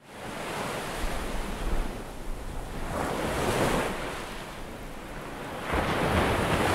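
A rushing wash of noise that fades in, then swells and ebbs in slow waves, with a rise about three seconds in and another near the end.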